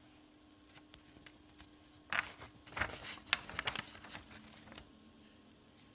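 A sheet of drawing paper rustling and crackling as it is handled, in a cluster of short crackles starting about two seconds in and lasting about three seconds, over a faint steady hum.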